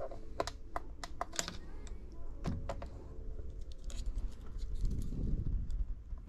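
A quick run of sharp clicks and taps of small hard objects, spaced irregularly like typing, in the first few seconds. A softer rustle follows near the end.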